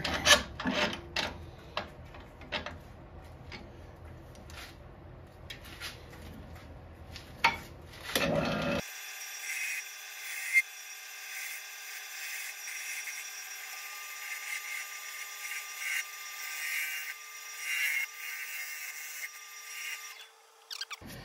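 Metal clicks and knocks as a wood lathe's tool rest is adjusted. About nine seconds in, the lathe is running and a turning tool cuts the spinning bowl blank, a steady hiss of shavings over the motor's whine, until it stops near the end.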